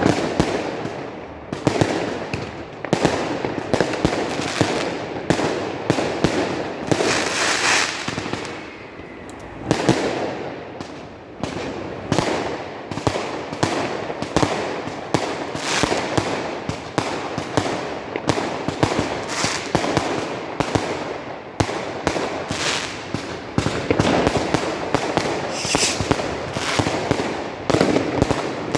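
Fireworks and firecrackers going off all around, in a dense, irregular barrage of sharp bangs and crackles, each bang echoing off buildings. A hissing burst stands out at about 7 seconds and again near 26 seconds.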